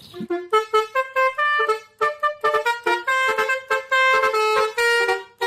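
A toy telolet bus's electronic multi-tone horn playing a quick tune of short and held horn notes, with a brief pause about two seconds in.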